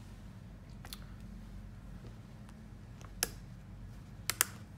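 A few light, sharp clicks and taps of small hard atomizer parts being handled, the loudest a quick double click near the end, over a steady low hum.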